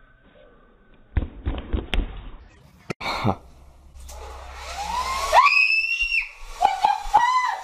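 A few heavy thuds about a second in, as a body lands hard after a backflip. Then a steady rushing hiss builds, over which a girl lets out a long rising scream and then a few short shrieks near the end.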